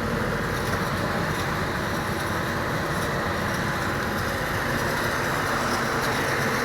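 Steady, unchanging mechanical running noise, like that of a running machine or engine.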